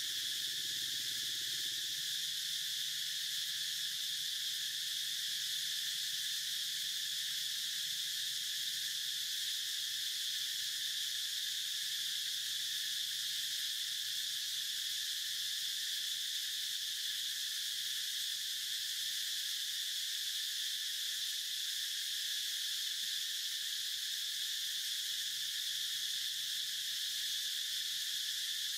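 Steady insect chorus: a continuous high-pitched drone that holds level without pauses.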